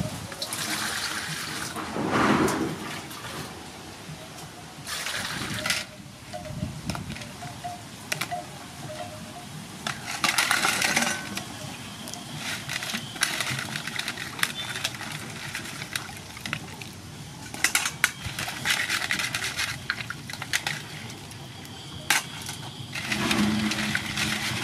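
Hands washing crabs in a metal basin of water: splashing and sloshing in repeated bursts, with occasional clicks.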